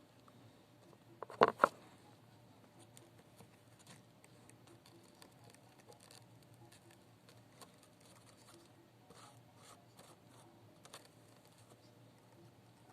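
Small parts and tools handled on a workbench during soldering: a quick cluster of sharp knocks about a second and a half in, then faint light clicks and scratching.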